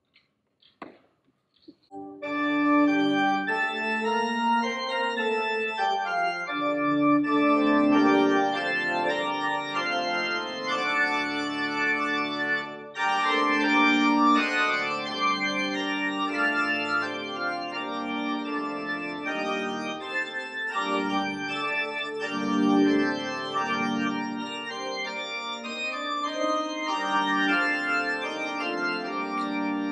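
Organ playing slow, sustained chords, starting about two seconds in after a brief near silence.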